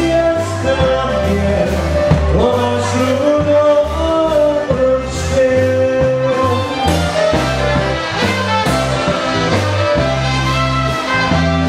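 Live polka band playing a waltz: a held melody line over bass notes and a steady beat.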